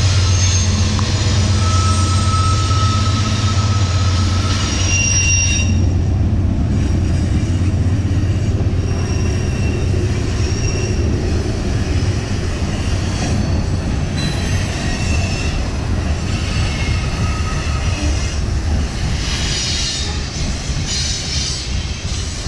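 Norfolk Southern freight train rolling across a bridge. The diesel locomotives' heavy engine drone dominates the first five seconds or so, then gives way to the wood chip cars rolling past with wheels squealing in high, on-and-off tones. The sound fades a little near the end as the last cars clear the bridge.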